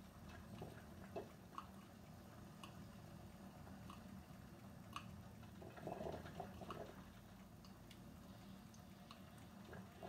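Moccamaster drip coffee maker brewing, faint: irregular drips and ticks, with a short gurgle about six seconds in, over a low steady hum.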